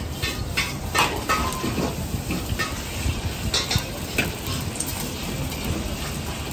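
A long-handled metal ladle scraping and clinking against a carbon-steel wok as eggs are stirred, with about eight separate clinks, over a steady low rumble from the wok burner.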